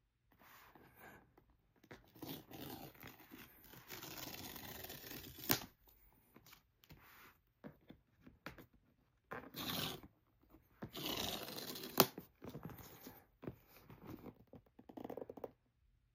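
Paper pull-tab strips being ripped off the seal of a MacBook Air box, in several tearing stretches, with a sharp snap about halfway through and another later on.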